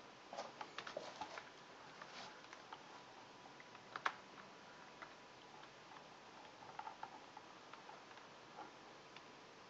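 Faint scattered clicks and taps of a USB cable and phone being handled and plugged in, with one sharper click about four seconds in.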